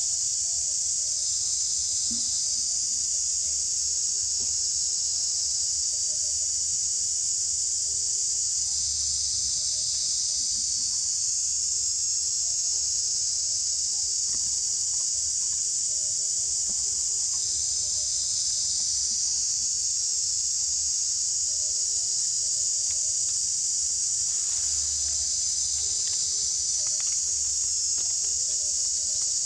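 A steady, high-pitched shrill of insects calling in chorus, with a faint low rumble underneath.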